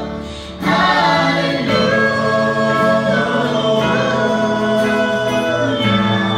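A choir singing a Christian song in harmony, the voices coming in together about half a second in and holding long, sustained chords.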